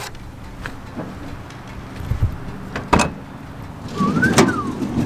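A car door being handled and opened: a low thud about two seconds in, a sharp latch click about three seconds in, then another click with a short squeak near the end.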